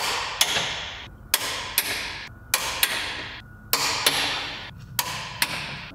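Click-type torque wrench breaking with sharp metallic clicks as rear subframe bolts are tightened to 47 ft-lb: about ten clicks, mostly in pairs about a second apart, each ringing briefly.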